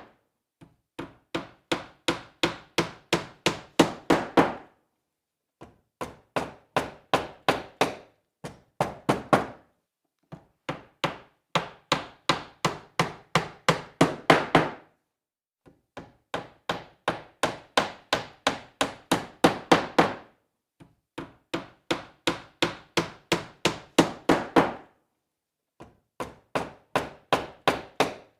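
Hammer driving nails into wood: runs of quick sharp blows, about three a second, each run lasting a few seconds with short pauses between. The blows tend to grow louder toward the end of each run.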